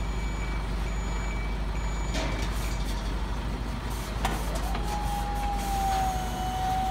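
Electronic reversing beeper of an RC-converted Bruder Scania R-Series UPS truck's sound module, beeping about once a second over a steady low engine hum. The beeps stop about two seconds in, and a steady higher tone sets in about five seconds in.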